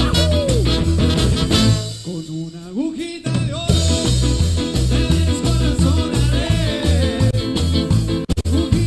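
Live cuarteto band with brass, keyboard, bass and drums playing a bouncing beat under a lead singer. About two seconds in the band drops out for a moment, leaving a sung line that rises, then the full band comes back in.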